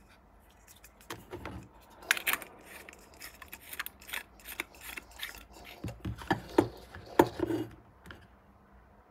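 Handling noise: an LED bulb screwed into a plastic clamp lamp's socket, then the lamp's cord and plug picked up. Irregular clicks, rubs and scrapes, loudest about two seconds in and again about seven seconds in.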